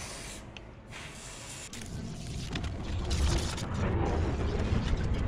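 Short hisses from a can-mounted expanding-foam gun dispensing sealing foam, with handling noise. A low rumble builds up after about two seconds and becomes the loudest sound.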